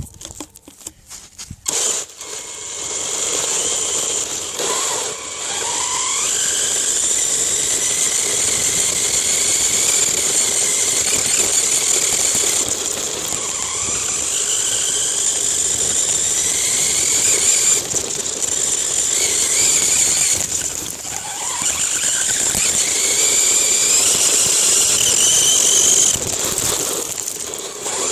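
Radio-controlled car's motor running with a high whine, starting up about two seconds in, its pitch rising several times as the car speeds up.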